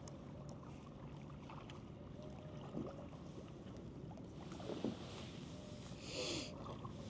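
Kayak paddle strokes dipping and splashing faintly in the water, with the loudest splash about six seconds in.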